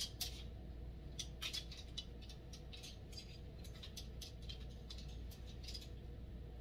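Scattered light clicks and rustles of clothes being handled on hangers, over a low steady hum.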